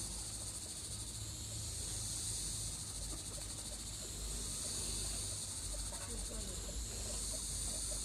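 Hot oil sizzling as batuk (bara), lentil-batter fritters, deep-fry: a steady high hiss that swells and eases every few seconds.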